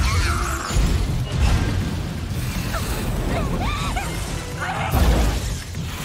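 Animated battle sound effects: loud crashing impacts and blasts, heaviest about a second in and again about five seconds in, over dramatic background music.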